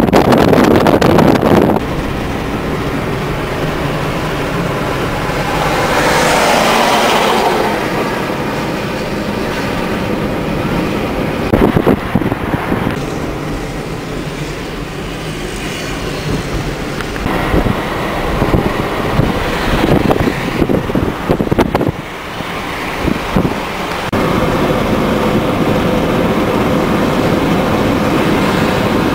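Car driving along a road, heard from inside the moving car: steady road and wind noise. It swells louder for a moment about six seconds in and gets a little louder again near the end.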